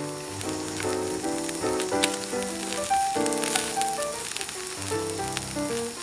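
Thick slabs of wagyu beef sizzling on a wire-mesh grill over charcoal, a fine steady crackle. A background tune of short melodic notes plays over it.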